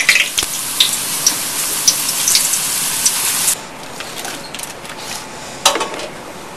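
Potato slices sizzling and crackling in deep-fryer oil. The sizzle drops off sharply about three and a half seconds in, leaving a fainter hiss, and a single knock comes a couple of seconds later.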